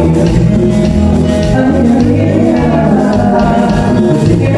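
A live Latin band playing amplified through a PA: drum kit, bass, electric guitar and keyboard, with a male lead singer singing over them.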